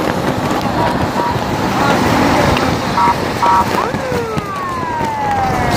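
Road and wind noise inside a moving car, with two short horn beeps about three seconds in, then a siren that sweeps up quickly and glides slowly down near the end.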